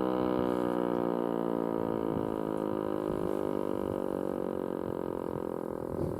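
ASC T-121 mechanical warning siren winding down at the end of its alert test: a steady multi-note wail whose pitch slowly falls as it grows quieter.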